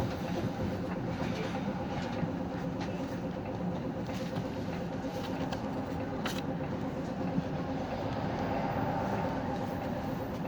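City bus diesel engine idling at a stop, heard from inside the cabin as a steady hum, with a few light clicks.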